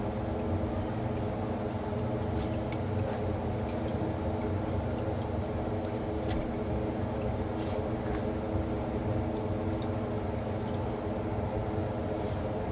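Steady machine hum with several fixed pitches, from a running motor or fan, with scattered light clicks and taps of small parts being handled.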